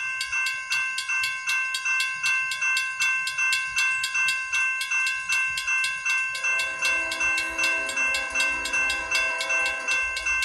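Railroad grade-crossing warning bell ringing in rapid, even strikes, sounding the warning of an approaching train. About six seconds in, a lower, steadier tone joins in under the bell and stops shortly before the end.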